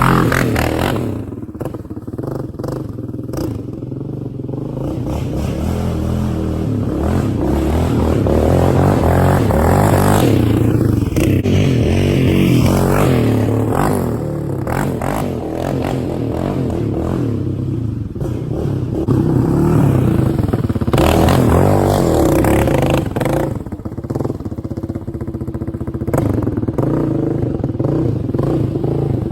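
Yamaha Raptor 700R's single-cylinder four-stroke engine being ridden with the exhaust baffle removed, revving up and falling back again and again. The open exhaust sounds pretty mean.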